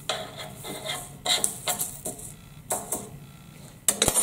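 Crushed dry ice chips and a sheet of paper scraped and pushed across a hard tabletop in about five short, sharp strokes as the pieces are gathered up.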